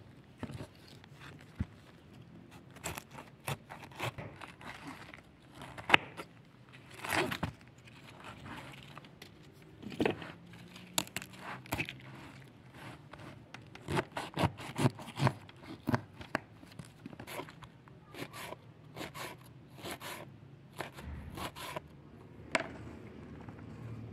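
Kitchen knife slicing a head of raw cabbage on a plastic cutting board: irregular crunching cuts with the blade knocking on the board, coming in quick runs as the cabbage is shredded.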